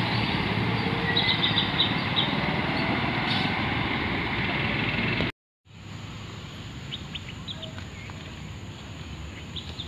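A four-wheel-drive SUV driving through floodwater, its engine running under a steady rushing wash of water, with a few short bird chirps. After an abrupt cut about five seconds in, a quieter steady wash continues with more brief bird chirps.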